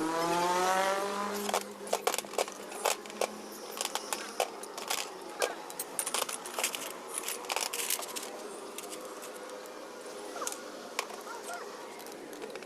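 Irregular metallic clinks and taps of tools and engine parts being handled, a few a second. It opens with a rising tone with overtones that lasts about a second and a half.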